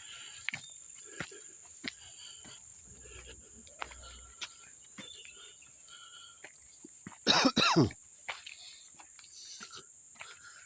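Steady high-pitched drone of insects in the woods, with footsteps crunching over leaves and rocks. About seven seconds in there are two loud, short sounds falling in pitch, much like a cough.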